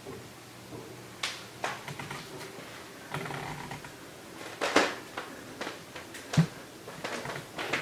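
Scattered light clicks and knocks at irregular intervals, the loudest a little before five seconds and a duller knock at about six and a half seconds.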